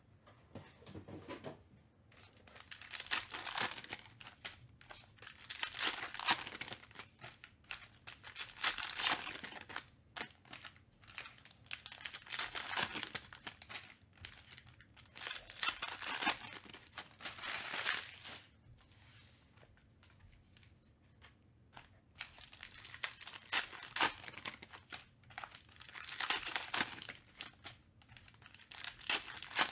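Foil wrappers of Panini Mosaic football card packs being torn open and trading cards being slid and sorted by hand. The crinkling, rustling bursts last a second or two each and come every few seconds, with a longer pause about two-thirds of the way through.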